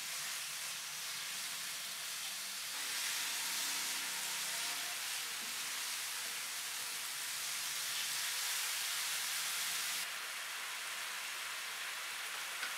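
Marinated chicken cubes sizzling steadily in hot oil in a nonstick frying pan over a medium-to-low flame.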